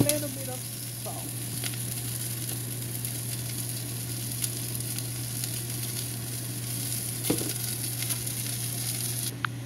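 Broccoli frying in hot oil in a pan: a steady sizzle with a few clicks of a utensil stirring it. The sizzle cuts off suddenly just before the end.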